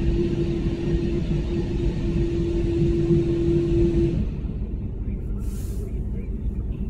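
Automatic car wash gantry's drying blowers running with a steady hum over rushing air, then shutting off about four seconds in. A low rumble continues after.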